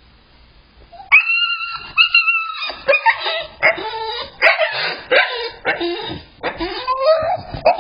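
Puppy crying in its crate: a string of high, wavering whines and yelps, some drawn out and some short, starting about a second in.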